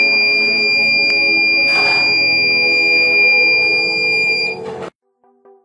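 Piezo buzzer of a homemade 9-volt door alarm sounding one steady high-pitched tone, set off by the door opening and pulling the insulating strip out of its clothespin switch. The tone cuts off about four and a half seconds in, when the strip is pushed back between the contacts.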